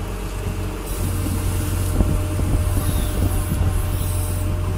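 Fishing boat's engine running with a steady low drone, which steps up slightly about a second in, with irregular knocks and clatter from work on deck.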